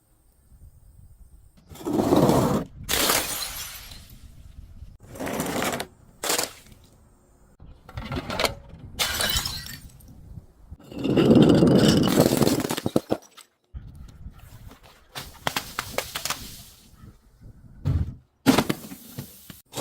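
Glass bottles being smashed and crushed: a series of separate crunching, shattering breaks, the longest about eleven seconds in.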